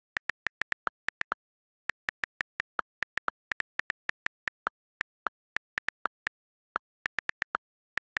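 iPhone on-screen keyboard key clicks as text is typed: a quick, uneven run of short sharp ticks, about four to five a second, most at one pitch and some a little lower, with brief pauses between bursts of typing.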